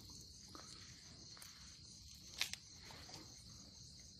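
Faint, steady chirring of crickets at night. Two quick sharp clicks a little past halfway.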